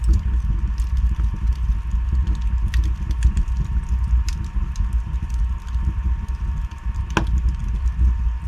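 Wood fire burning in a fireplace: a steady low rumble with scattered crackles and pops from the logs, and one louder pop about seven seconds in.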